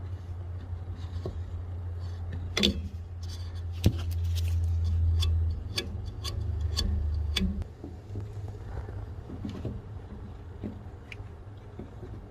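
Clicks, light taps and two sharper knocks from hands and an oil can working around a furnace blower motor's bushing and bearings as they are oiled, over a steady low hum that swells for a few seconds in the middle and then drops.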